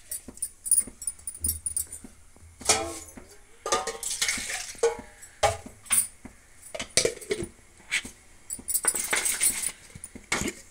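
Steel kitchen vessels clinking and clanking: a steel mixer jar and a ladle knocking against a metal pot of sambar, with a few longer ringing clanks among irregular small clinks.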